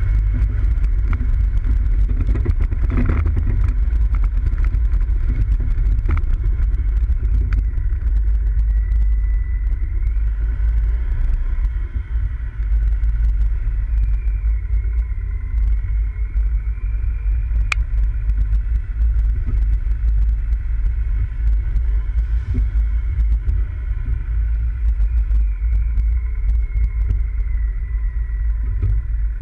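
Off-road vehicle driving over a rough track: a steady, loud low rumble of engine and running gear, with one sharp click a little past halfway.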